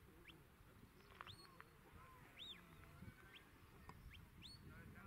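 Faint, scattered bird calls: short high chirps and arched whistled notes, several a second at times, over a low rumble.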